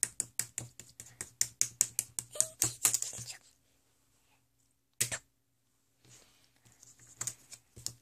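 A yellow plastic spoon rapidly patting a firm, sticky homemade slime, making quick sharp clicks about five a second. The tapping stops about three and a half seconds in, with one more click about five seconds in, and starts again near the end.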